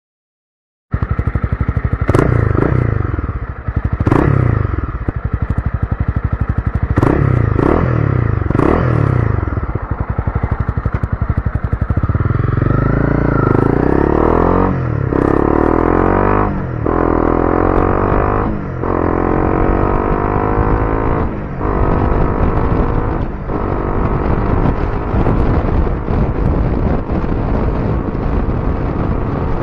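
Honda CB300R single-cylinder engine through a Yoshimura R77 slip-on exhaust with a dB killer fitted, heard while riding. It starts about a second in with a few sharp throttle blips, then accelerates through the gears: the engine note rises and drops at each upshift, about five times, before settling into steadier running at speed.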